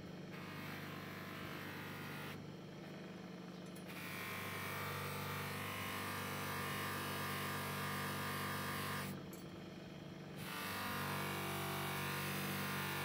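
Bench grinder motor running steadily with a cloth buffing wheel, with the hissing rub of polishing compound and then the metal axe head pressed against the spinning wheel. The rubbing comes in three stretches, breaking off twice briefly where the work is lifted away, while the motor hum carries on.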